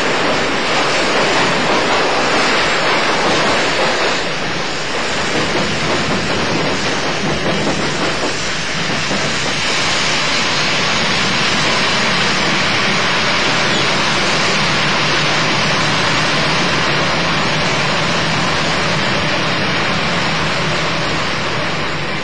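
JNR 80 series electric motor car MoHa 80342 running on the line, giving a steady, loud rush of wheel, motor and running noise, with a small dip about four seconds in.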